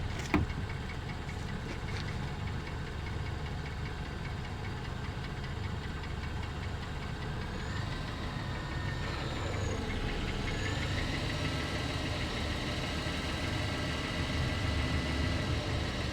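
Mercedes M272 3.0 V6 engine running with a knock from deep inside it, plain at idle. There is a sharp click just after the start, and the revs rise and fall a little around the middle.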